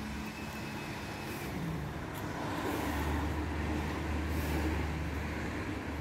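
Street traffic: a motor vehicle's engine rumbling low and steady, swelling about halfway through and easing off near the end, over general road noise.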